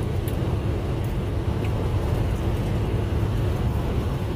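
Steady low rumble of a semi-truck heard from inside its cab.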